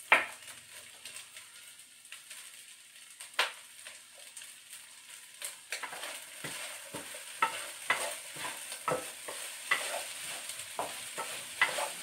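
Wooden spatula stirring and scraping fried rice with shrimp and mixed vegetables around a hot granite-coated wok, over a faint sizzle. A sharp knock comes right at the start and another a few seconds in; from about halfway through the spatula strokes run about twice a second.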